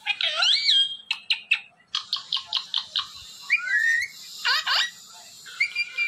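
Parrot calls: gliding whistles that rise and fall, and a quick run of short repeated chirps in the middle.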